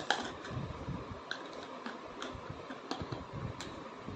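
Plastic toy food and toy cookware clicking and tapping together as they are handled: light, irregular clicks every half second or so over a faint steady hiss.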